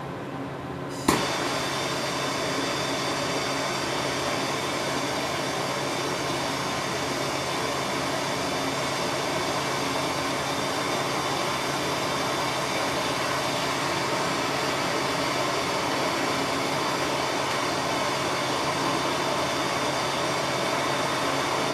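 A handheld torch is lit with a click about a second in, then burns with a steady hiss, heating a solder cup to solder a clutch cable end. The hiss stops abruptly near the end.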